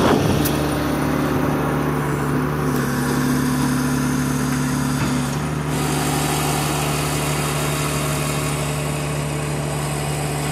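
Heavy truck engine running steadily at a low, even pitch, its tone shifting slightly about three seconds in and again about five and a half seconds in.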